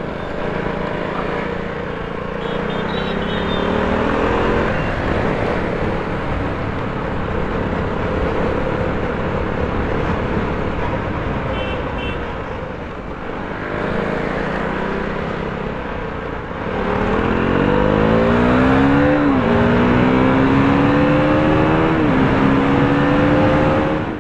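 KTM 390 Duke's single-cylinder engine under acceleration, pulling up through the gears. Its pitch rises and falls back at each upshift, several times, most plainly near the end. Wind rushes over the microphone throughout.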